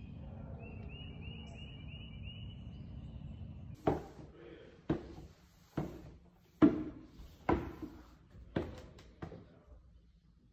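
Outdoor rumble of wind on the microphone with a bird chirping a quick run of notes, then, after about four seconds, footsteps thudding down wooden stairs about once a second, ringing in a room.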